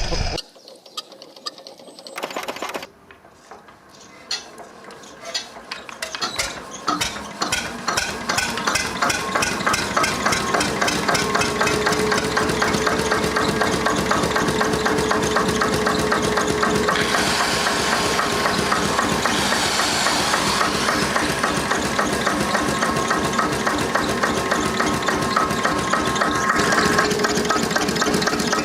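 An old engine being started: a few separate firing knocks at first, then beats that come faster until it catches and runs steadily with an even, rapid beat.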